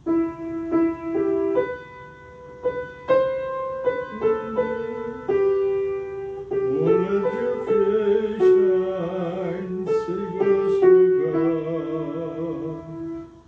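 Piano playing the short opening melody of a psalter hymn tune, note by note with chords. About seven seconds in, a singing voice with vibrato joins the melody.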